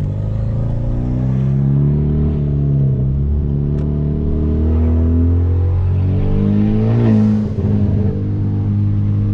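Hyundai Veloster Turbo's turbocharged 1.6-litre four-cylinder, breathing through a catless downpipe, pulling through the gears: the engine note climbs and drops back several times, climbs hardest about seven seconds in, dips briefly, then settles into a steady cruise. Heard from inside the cabin with the windows down.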